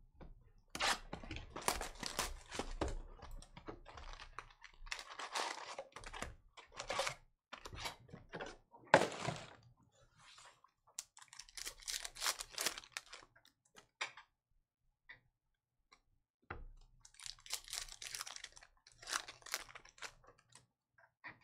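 Crinkling and rustling of wrapper and foil trading-card packs as a hobby box is opened and its packs are handled and a pack opened, in irregular spells with short pauses and one sharper crack about nine seconds in.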